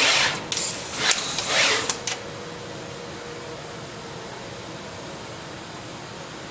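Stepper-driven pick-and-place machine at work: a quick run of loud, noisy mechanical bursts over the first two seconds, then only a steady hiss.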